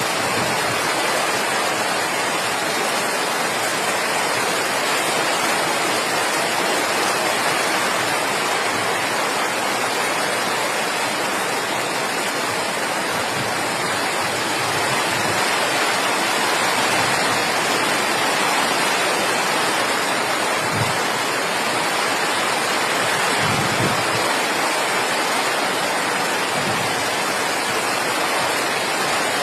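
Steady, loud rush of water from heavy rains, unbroken throughout, with a few brief low thumps in the second half.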